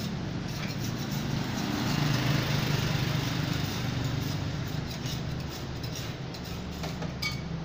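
An engine running steadily, a low hum that swells slightly for a couple of seconds near the middle.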